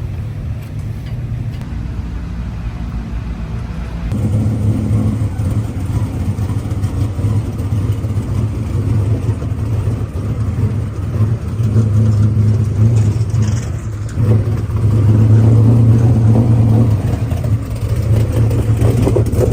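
Dirt modified race car engines running at low speed, getting louder about four seconds in and swelling and easing after that.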